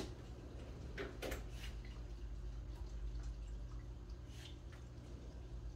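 A few light, sharp clicks and taps over a steady low hum.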